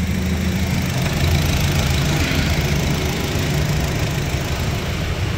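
Honda Brio engine idling steadily through an aftermarket exhaust: racing downpipe and front pipe with an HKS bolt-on muffler.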